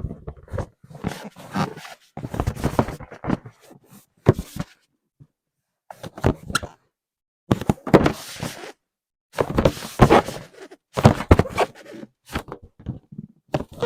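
Inflated rubber balloons being hugged and squeezed: rubber squeaking and rubbing against skin and fabric in irregular bursts of a second or so, with short silent pauses between them.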